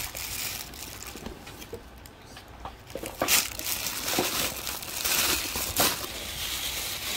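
Plastic packing wrap inside a new handbag crinkling and rustling as hands dig through it, in irregular bursts. The sharpest rustle comes about three seconds in and another near six seconds.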